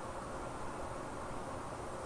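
Steady hiss of room noise through a webcam microphone, with no snore or breath sound: a pause between a sleeping person's breaths.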